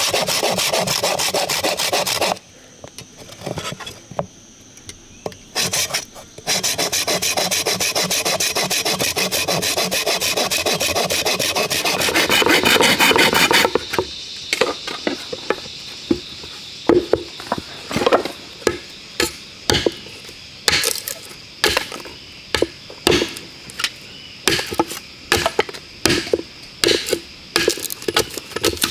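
Wood being worked with a hand tool: a long stretch of fast, steady rasping, as from sawing or filing, then from about halfway a string of sharp separate knocks about once or twice a second, like chopping or splitting.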